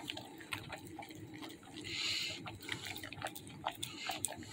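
A puppy eating beef stew from a bowl: wet chewing and lapping with many quick clicks, a little louder for a moment about two seconds in.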